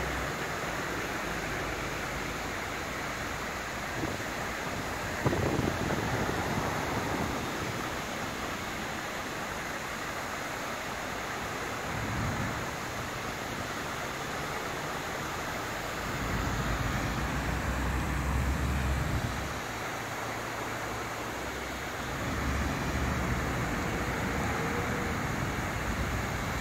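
Large fountain's water jets falling and splashing into the basin, a steady rushing hiss. There is a sharp knock about five seconds in, and a low rumble comes and goes twice in the second half.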